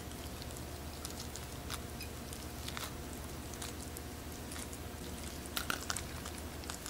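Cooked lobster being pulled apart by hand: soft squishy tearing of the meat and small crackles of shell, with a few sharper clicks about five and a half seconds in, over a faint steady low hum.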